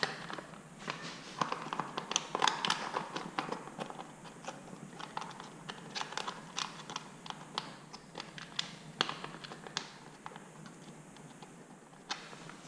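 Irregular small clicks and taps of a bolt and hand tools being handled while a motorcycle cover bolt, dabbed with Loctite, is started into its hole.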